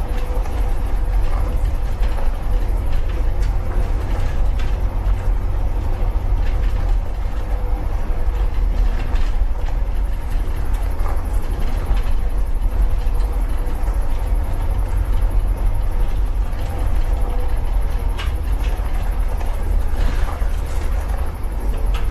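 Engine of a 1950 truck running with a steady low rumble, with scattered light rattles and clicks over it.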